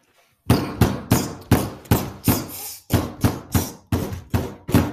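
A fast run of sharp percussive hits, about three a second, in a transition sound effect.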